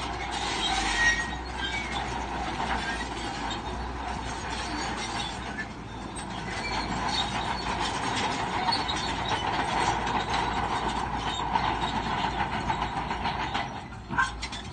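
Crawler bulldozer at work: its steel tracks clank and squeal steadily over the running diesel engine, easing off briefly near the end.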